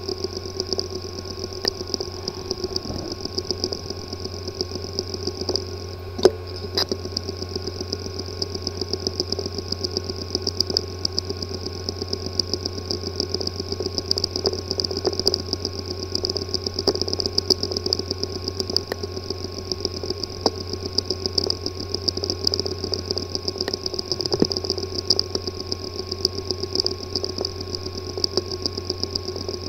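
A hard disk drive with a physically damaged disk assembly running, heard as a steady hum and high whine with rapid, repeated clicking and one louder click about six seconds in. The clicking is the symptom of a damaged disk assembly that leaves the drive inaccessible.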